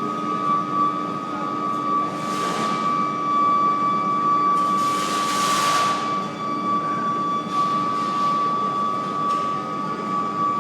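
Coreless induction melting furnace running, giving a steady high-pitched whine with a lower hum beneath it, as it melts aluminum scrap. A rush of hiss swells and fades three or four times over it.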